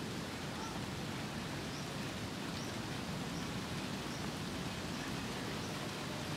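Steady, even outdoor background hiss, with faint high chirps repeating about once a second.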